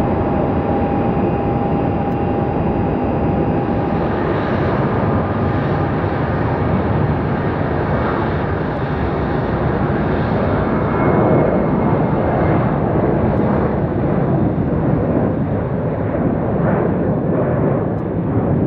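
Boeing 737-800's CFM56-7B turbofan engines running at takeoff power through the takeoff roll: a loud, steady jet rush, with a thin steady whine in the first few seconds.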